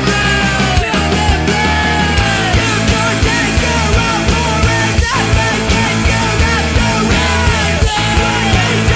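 Loud punk-rock band recording playing with a steady beat.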